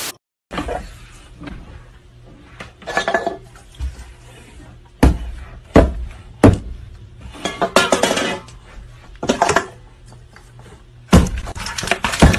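Hard objects knocking and clattering on a tabletop: about a dozen sharp, irregular knocks, the loudest about halfway through and near the end, over a low steady hum.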